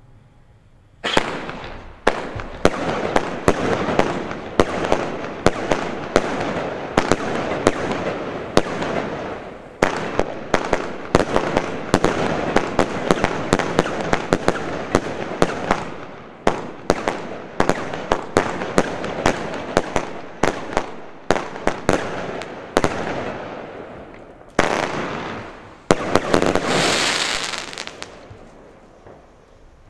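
Stardust 'Majestic Joyful Beautiful' 40-shot firework cake firing: a rapid, continuous string of launches and bursting shells over a steady crackling hiss, starting about a second in. It ends with one last loud burst and dies away near the end.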